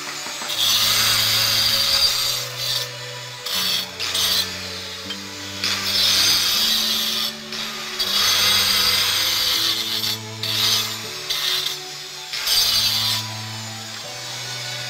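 Small handheld angle grinder cutting stone pieces in repeated bursts of a few seconds, the cutting easing off near the end.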